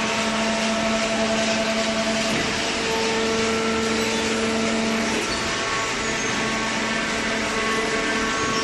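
Hydraulic paper baler running: a steady machine whir with a continuous hum, like an electric motor driving a hydraulic pump.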